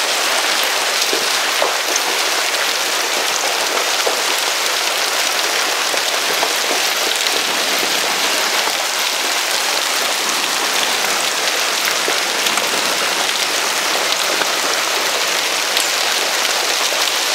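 Heavy hailstorm: large hailstones, about 4 to 5 cm across, pelting down with rain in a steady, dense hiss of impacts.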